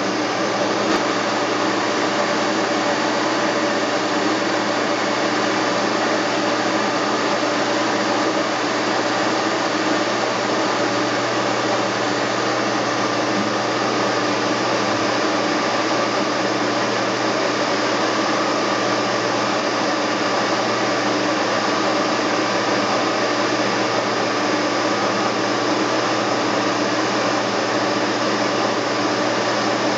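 Steady machine whir with a constant hum, unchanging throughout: a motor-driven machine running continuously.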